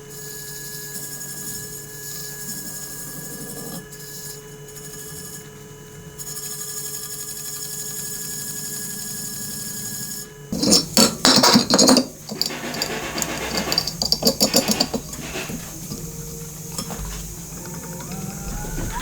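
An electric power tool's motor running at a steady pitch. About ten seconds in comes loud, irregular rasping and scraping as the tool works against a part for a few seconds, then lighter scraping. Near the end the motor rises in pitch as it spins up again.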